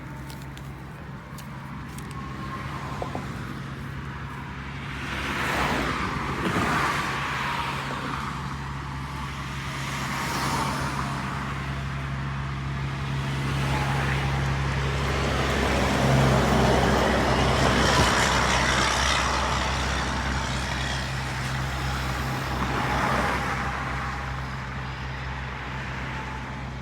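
Road traffic: vehicles passing one after another, each swelling up and fading away, over a steady low hum.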